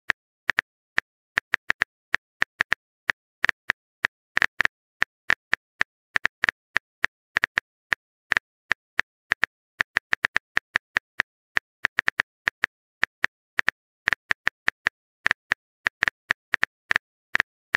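Phone keyboard typing sound effect: short, sharp clicks, one per keystroke, a few a second in an uneven rhythm with brief pauses, as a text message is typed out.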